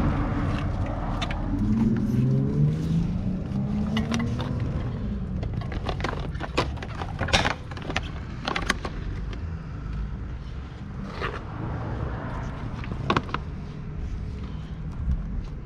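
A car engine rising in pitch as it accelerates in the first few seconds, over a steady low rumble, followed by scattered sharp clicks and scrapes.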